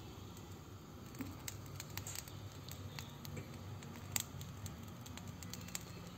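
Fine down on a plucked chicken crackling and popping as it is singed in a gas burner's flame, with scattered sharp pops, the loudest about four seconds in, over a steady low hum.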